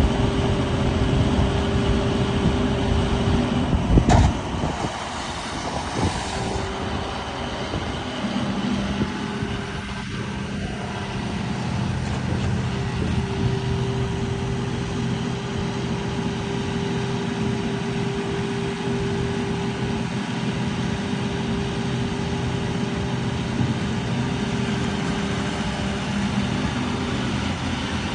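2012 John Deere 250G excavator running, its diesel engine and hydraulics giving a steady hum whose tones shift as the machine works. One sharp loud bang comes about four seconds in.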